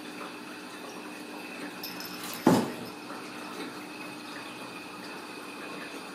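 A single sharp knock about two and a half seconds in, ringing briefly, over a steady background hum and hiss.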